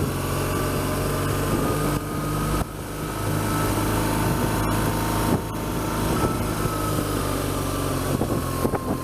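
BMW R1200GS boxer-twin engine running at low road speed, heard from the rider's helmet-mounted camera, with two brief dips in level.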